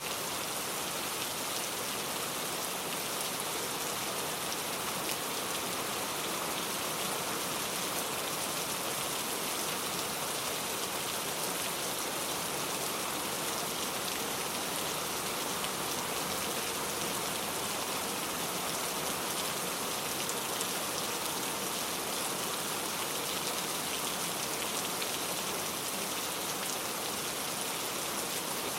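Heavy rain falling steadily, a dense, even hiss of drops pattering on surfaces with no let-up.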